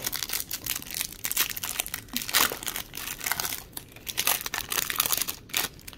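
Foil wrapper of a football card pack crinkling in a dense run of quick crackles as it is torn open and handled.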